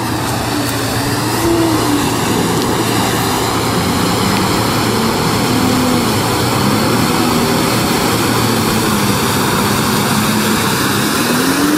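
Mitsubishi Pajero 4WD's engine revving up and down as it pushes through deep mud, over a steady hiss of mud and water splashing from the spinning wheels.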